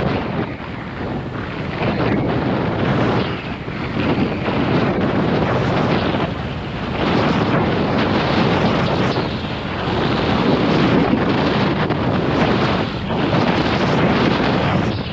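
Strong headwind buffeting the microphone of a skier's camera while skiing downhill, in surges that rise and fall every second or two, with the hiss of skis running over soft snow mixed in.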